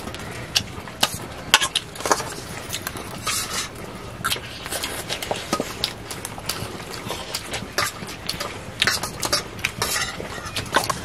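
Metal spoon clinking and scraping against a stainless steel bowl while eating: short, irregular clicks and scrapes.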